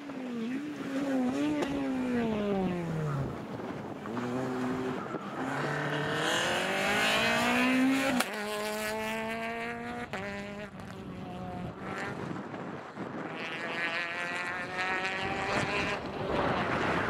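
Peugeot 208 rally car engine at full stage pace. The revs fall as it slows, then it accelerates hard, with the pitch climbing and dropping sharply at each upshift. It is loudest as it passes close, about eight seconds in, then carries on revving as it pulls away.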